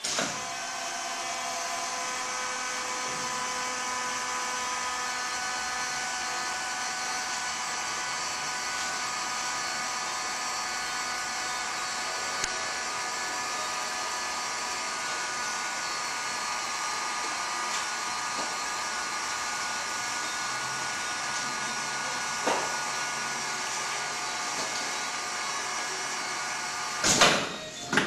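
Steady high-pitched whine of a circular bottling machine's filling pump motor running while a bottle fills with juice. Near the end come two short, loud bursts of air hiss from its pneumatics.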